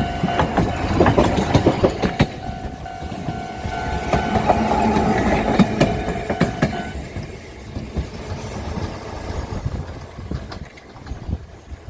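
Kagoshima City Tram streetcar passing over a level crossing, its wheels clacking over the rail joints. The crossing's clanging warning bell rings with it, drops out briefly near the start and stops about seven seconds in, after which the tram fades away.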